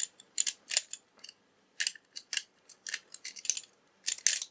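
Metal pick rattling and scraping against the discs inside a disc detainer padlock while it is raked back and forth: irregular clusters of sharp little clicks.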